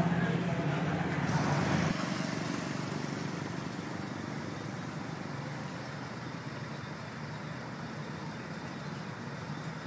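Road traffic: a steady wash of car engine and tyre noise. It is louder with a low engine hum for the first two seconds, then drops abruptly to a quieter, even rumble.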